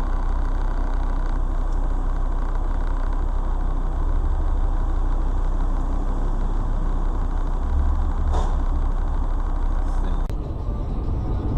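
Steady low rumble of a car's engine and road noise. About ten seconds in there is a sharp click, after which the sound turns duller.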